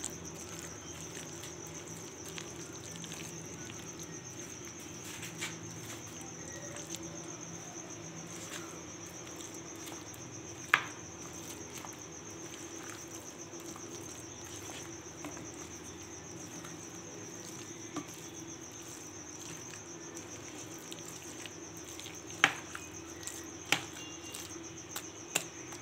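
A spoon stirring thick, wet pakora batter of gram flour and chopped vegetables in a glass bowl. The spoon clicks sharply against the glass a few times, once about eleven seconds in and several times near the end. A steady high-pitched trill and a low hum run underneath.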